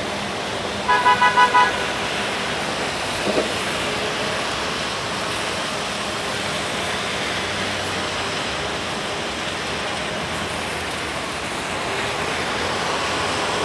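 A car horn sounding five quick toots in a row, over the steady hiss of traffic on a rain-wet city street.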